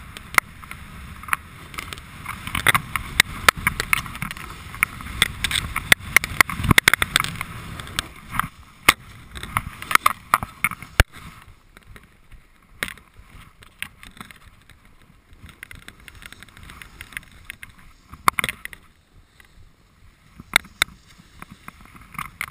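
Snowboard sliding and carving on packed snow: a steady scraping hiss with many sharp clicks and knocks. It is louder for the first several seconds and quieter from about halfway through.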